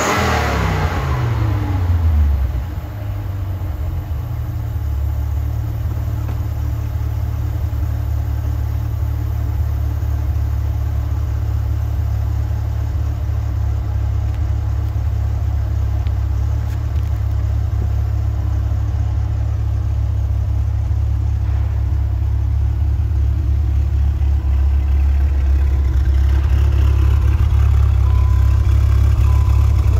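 1994 Dodge Viper RT/10's 8.0-litre V10 just after a cold start: its revs fall from the start-up flare in the first couple of seconds, then it settles into a steady, deep idle.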